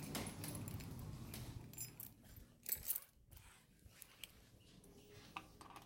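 Faint low room rumble that fades away, then a few light clicks and rattles about two to three seconds in.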